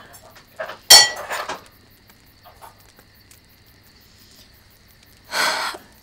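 A spoon or fork clinking against a plate a few times, one sharp clink about a second in the loudest, as someone eats at a table. Near the end comes a short rush of noise.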